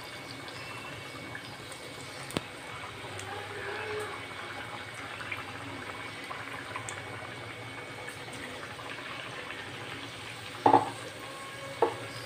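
Batter-coated potato slices deep-frying in hot oil in a kadhai on high heat: a steady sizzle and bubbling. There is a small click about two seconds in and two short, louder sounds near the end.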